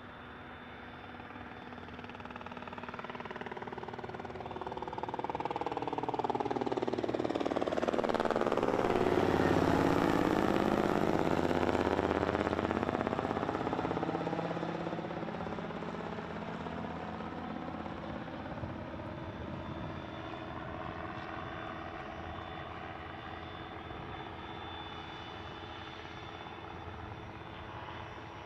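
An aircraft departing on its takeoff run and climb-out passes the microphone: its engine sound builds to a peak about ten seconds in, then fades slowly away.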